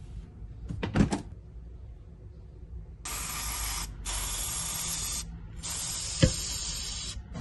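Hand-held spray bottle misting frozen gyoza in an air fryer basket: three long sprays, each a steady hiss of about a second, starting about three seconds in. A knock comes about a second in, and a short click near the end.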